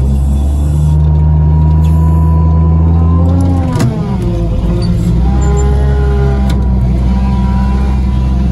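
Feller buncher's diesel engine running hard, heard from the cab. It sags in pitch about four seconds in and picks back up. In the second half a chainsaw cuts close by, its whine wavering over the engine.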